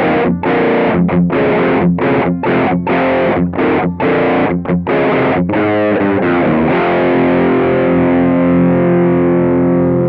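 Electric guitar through a Mooer Cruncher distortion pedal set to low gain, playing a riff of about a dozen short, chopped chords, then letting one chord ring out from about seven seconds in.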